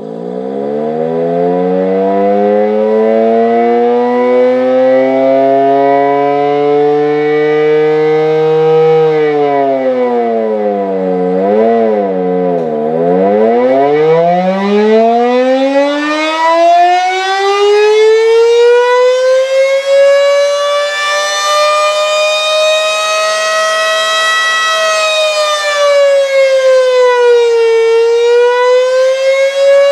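Fedelcode Model 5 outdoor warning siren sounding the attack signal: it starts up and winds up in pitch, drops with a quick wobble about ten seconds in, then climbs slowly back to its top note and dips and rises again near the end. The siren sounds weak because the variable-frequency drive powering it is underpowered for the siren's motor.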